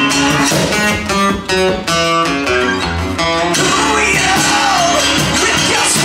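Live acoustic band playing: two acoustic guitars strumming chords over a cajón beat, with a man starting to sing a little past halfway.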